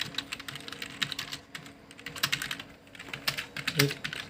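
Computer keyboard being typed on: an irregular run of key clicks that thins out for a moment in the middle before picking up again.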